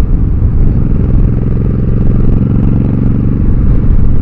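Motorcycle engine running steadily while riding, with heavy wind rumbling on the microphone.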